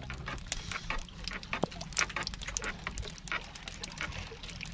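Water lapping and splashing against a small wooden boat's hull, with many irregular light clicks and taps as a fishing longline is hauled in by hand over the side.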